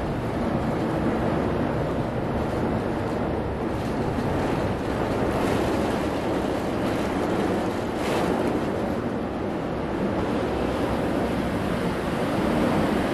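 Heavy rain and wind outside, a steady rushing noise heard from inside a building.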